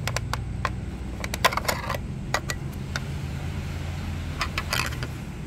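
Sharp plastic clicks and rattles as the compartment cover on the back of a vintage portable radio is prised open and handled, in a quick run of clicks and then a short second cluster near the end, over a steady low hum.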